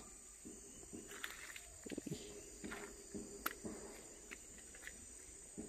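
Faint, steady high-pitched chorus of rainforest insects, with a few scattered soft clicks and scuffs, one sharper click about halfway through.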